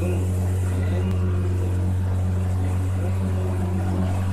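Small boat's motor running steadily as the boat moves along: a low, even drone that does not change.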